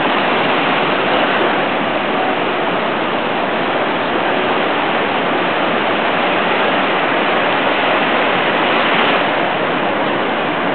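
Surf breaking on a sandy beach, a steady roar of waves with a slight swell near the end.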